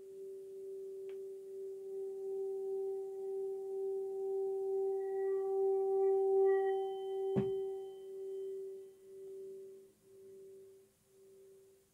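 Metal singing bowl sung by rubbing a covered wooden beater around its rim: one steady ringing tone with a higher overtone, swelling over the first six seconds or so. A small knock comes about seven and a half seconds in as the beater comes off, and then the tone fades with a slow pulsing waver.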